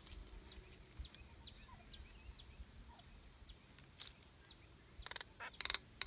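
Mynas giving several harsh, rasping calls in quick bursts in the last two seconds, over faint scattered chirps earlier on.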